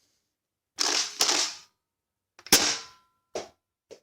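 A rushing noise, then a sharp shot-like crack with a brief ringing tone after it, followed by two lighter clicks near the end.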